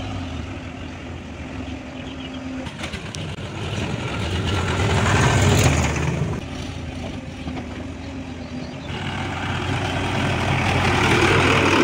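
Diesel engines of a JCB 3DX backhoe loader and a Sonalika tractor running steadily as the loaded tractor trolley moves off. The engine gets louder about halfway through and again near the end as the tractor passes close.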